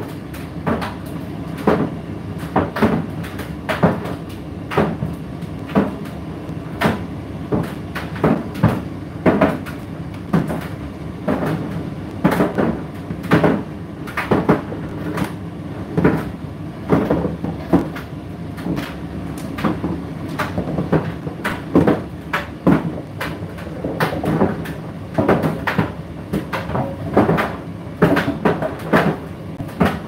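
Indesit IDC8T3 8 kg condenser tumble dryer running, its drum turning with a steady hum, broken by frequent irregular knocks and clunks, about one or two a second, as the load tumbles.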